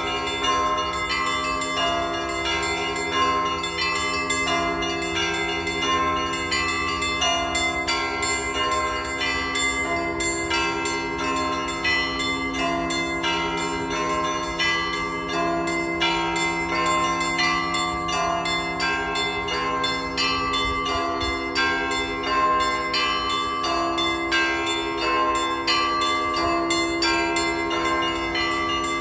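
Orthodox church bells ringing a full peal: many smaller bells struck rapidly, several strikes a second, over the long, sustained ring of larger bells.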